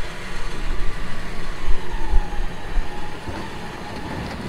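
Electric recovery winch pulling a Suzuki Jimny up a rocky slope, its motor whining with a faint tone that sags a little in pitch about halfway through. Gusty wind rumbles on the microphone.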